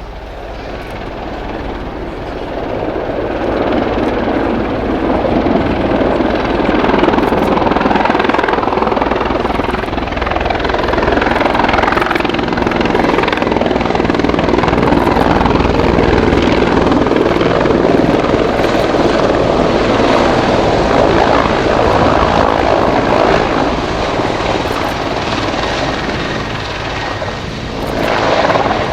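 Mil Mi-24V Hind helicopter in flight, with its rotor and twin turboshaft engines. The sound grows louder over the first few seconds, then stays loud and steady, with a short dip and a fresh swell near the end.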